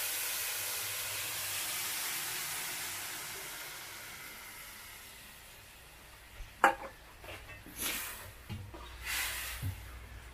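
Hot water poured onto hot fried rice in a metal kadai, hissing and sizzling loudly at first and dying away over about five seconds. Then a sharp knock and a few scrapes of a ladle stirring in the pan.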